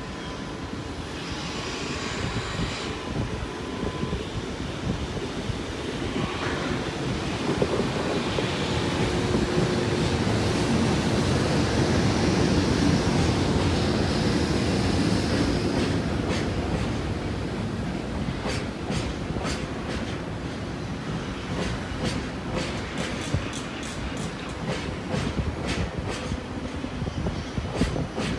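Freight train hauled by an EH200 electric locomotive passing by, a steady rumble that grows loudest about halfway through. In the second half, the tank and hopper cars' wheels click in a regular clickety-clack over the rail joints.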